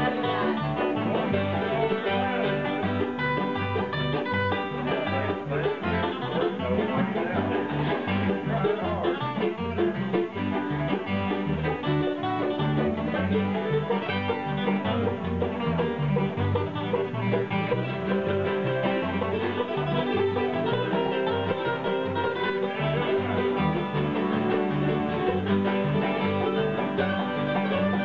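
Bluegrass-style acoustic jam: a mandolin, an acoustic guitar and an electric bass playing a tune together, with quick plucked and strummed strings over a steady low bass line.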